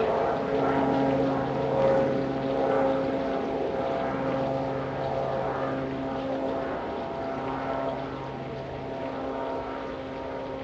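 Piaggio P.180 Avanti's twin pusher turboprops droning past with several steady held tones, slowly fading as the aircraft moves away.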